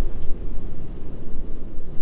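Snoring: a low, rough rumble that rises and falls unevenly in loudness.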